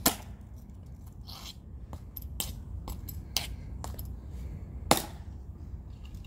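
Tomb guards' metal-tapped shoes clicking on the stone plaza as they march and halt. Sharp, separate steps and heel clicks, the loudest about five seconds in, over a steady low rumble.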